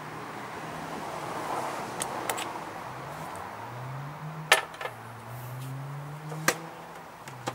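A few sharp metallic clicks and clinks of hand tools and sockets being handled, over a faint low hum that slowly rises in pitch now and then.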